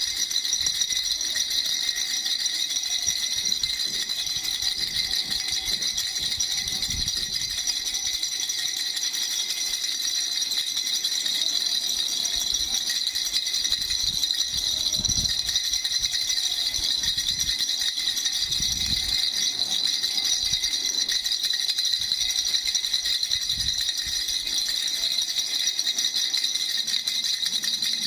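Baby rattle shaken rapidly and without a break, a steady bright rattling.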